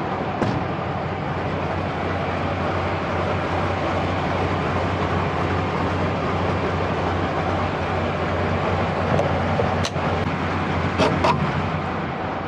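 Semi-truck diesel engine idling steadily close by, with a few sharp clicks and knocks near the end.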